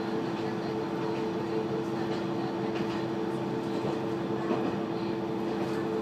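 Inside the cabin of a KiHa 120 diesel railcar under way: steady running noise with a constant hum.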